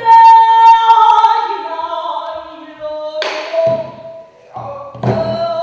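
A pansori singer holds a loud, high note that bends down into lower, wavering notes. Barrel-drum (buk) strokes come in twice, in the second half.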